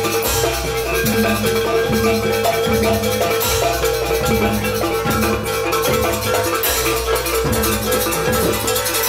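Jaranan gamelan-style music: a repeating melody of struck metal-keyed percussion over a repeating low note pattern, with a high held tone running steadily underneath.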